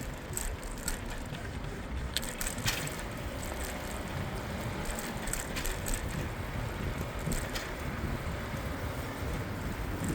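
Bicycle riding along a city street: a steady rush of wind and road noise, with a scattering of short clicks and rattles from the bike.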